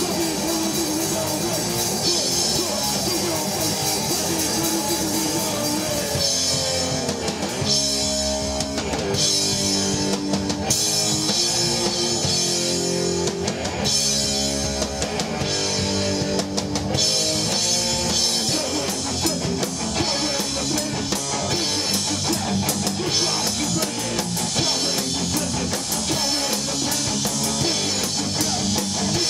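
Rock band playing an instrumental passage: distorted electric guitar, bass and drum kit with cymbals. In the middle stretch the cymbals drop out and back in for a stop-start part.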